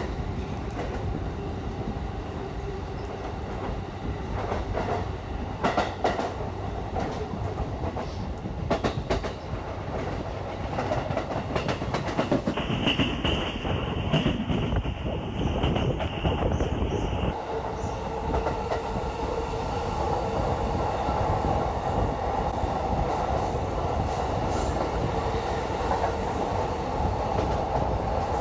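JR East E235-series Yamanote Line train pulling out and running, heard through an open window: wheels clatter over rail joints and points in the first third, a steady high tone sounds for a few seconds in the middle, and a steadier lower tone runs on from a little past halfway.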